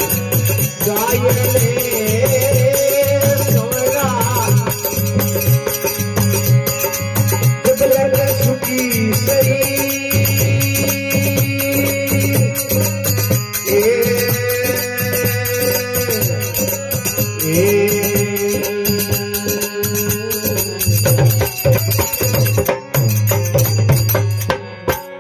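Instrumental passage of a folk bhajan: harmonium playing the melody over a steady dholak beat, with small hand cymbals jingling. The music cuts off just before the end.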